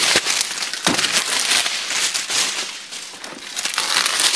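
Plastic shrink wrap crinkling and crackling as a wrapped cardboard tool-kit box is handled and turned over, with a knock about a second in.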